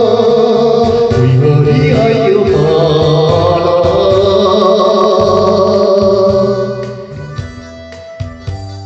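Taiwanese Hokkien ballad music: long held melody notes with vibrato, then the music drops to quieter, separate keyboard notes about six and a half seconds in.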